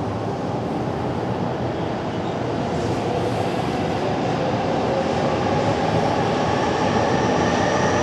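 Steady city street noise, a broad rumble that grows slightly louder toward the end, with a faint whine slowly rising in pitch.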